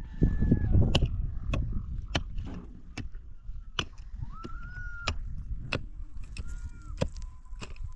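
Hands digging in a stony hole: scraping of soil and stones, with sharp knocks about every half second to a second. A few drawn-out calls from poultry carry over it, one held for nearly a second about four seconds in.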